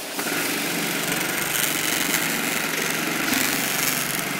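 Industrial automatic template sewing machine starting up and stitching a circle through fabric clamped in its template frame, running at a steady fast speed as an even mechanical whirr.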